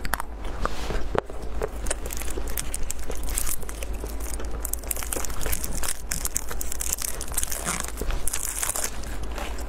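Chewing at first, then a plastic chocolate-bar wrapper crinkling and tearing as it is pulled open by hand, loudest about three and a half seconds in and again near the end.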